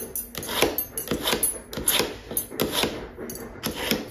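A kitchen knife blade drawn repeatedly through a three-stage hand knife sharpener: short metal-on-abrasive rasping strokes, about two a second.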